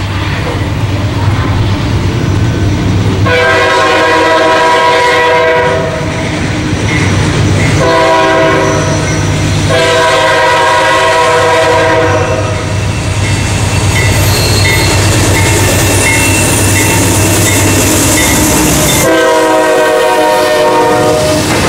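Approaching CSX diesel freight train sounding a multi-chime air horn in four long blasts over the steady drone of its locomotives. Between the third and fourth blasts a bell rings at an even beat. Near the end the lead locomotives pass close by.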